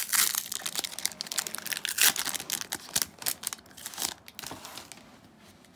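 Foil wrapper of a Magic: The Gathering collector booster pack being torn open and crinkled by hand: a dense crackling, loudest about two seconds in, that thins out and fades near the end.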